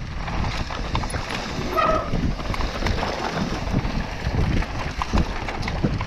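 Mountain bike clattering and rattling over a rough downhill trail: many quick knocks from the bike and tyres on dirt and stones over a constant low rumble.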